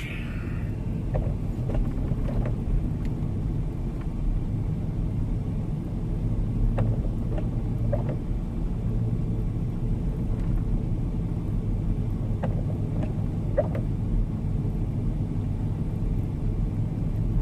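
Steady low rumble of a four-wheel-drive vehicle driving on a snow-covered road, heard from inside the cabin, with a few faint knocks scattered through.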